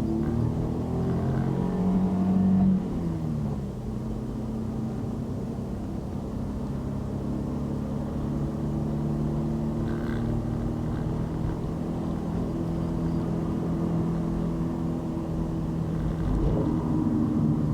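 Road vehicle engine and road noise while driving: the engine's pitch rises for the first few seconds, drops sharply at about three seconds in, then holds steady.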